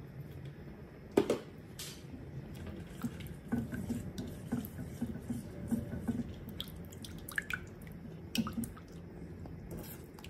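A silicone spatula stirring flour into milk in a metal pot, knocking and scraping against the pot in quick repeated strokes, about three a second. Two sharper knocks come a little over a second in.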